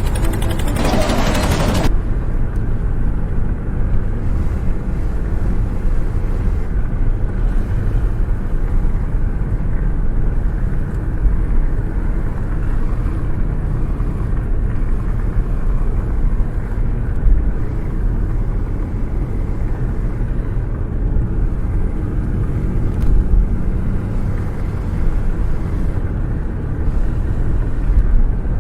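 Small vehicle engine running steadily with a low rumble, with a burst of hiss in the first two seconds.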